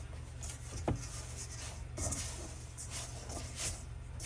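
Quiet rubbing and scraping of hands working extra flour into sticky bread dough, with a single light knock about a second in, over a steady low hum.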